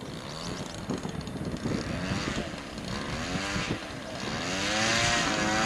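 Two-stroke petrol engine of a 1/4-scale Yak 54 model plane, a CRRC Pro GF26i, driving the propeller while the plane taxis. The revs rise and fall several times as the throttle is opened and closed, and they are highest and loudest near the end.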